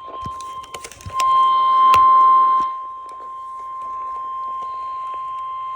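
NOAA Weather Radio's 1050 Hz warning alert tone over a receiver's speaker: one steady high beep, louder for about a second and a half early on and cutting off abruptly near the end, the signal that a warning message follows. A few sharp clicks break in during the first two seconds.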